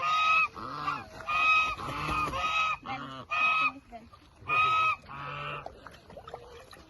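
Domestic geese honking: about seven loud, short honks of even pitch, repeated over the first five seconds, then it goes quieter.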